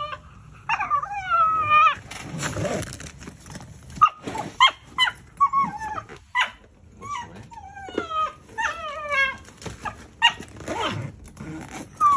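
A Shiba Inu screaming: a run of short, wavering high-pitched cries and yelps with breathy huffs between, while she mouths and licks at a hand. Her owners take it for distress and protest at their suitcase packing.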